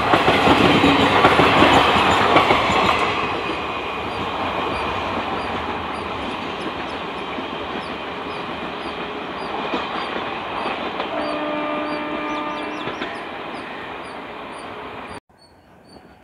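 Passenger train of blue ICF coaches running past at speed: loud rumble and clickety-clack of wheels over the rail joints, fading as the train draws away. A train horn sounds for about two seconds near the end, and then the sound drops suddenly to a faint background.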